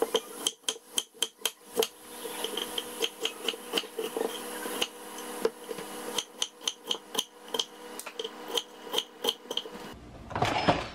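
Chef's knife chopping an onion on an end-grain wooden cutting board: a steady run of sharp knocks, about three a second, with a few short pauses. Near the end a brief scraping sound as an Instant Pot pressure cooker's lid is turned.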